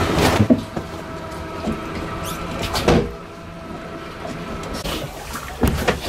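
A steady motor hum on a fishing boat, loudest in the first three seconds and then fading. Over it come a few sharp knocks and rustles of gear being handled on deck, one right at the start and another about three seconds in.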